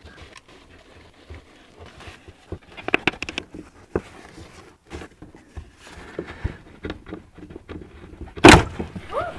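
Small clicks, scrapes and rattles of hand work on the underside of a car as a screw is undone and the diesel fuel filter is worked loose from its plastic holder, with one loud knock about eight and a half seconds in.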